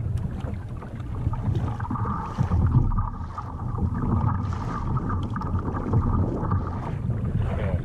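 Wind buffeting the microphone over choppy open sea, with water slapping against a plastic fishing kayak's hull.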